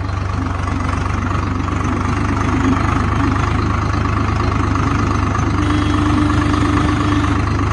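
Tractor's diesel engine running steadily while the tractor drives along, heard close up from the driver's seat. About two-thirds of the way through, a faint steady hum rises above the drone for a couple of seconds.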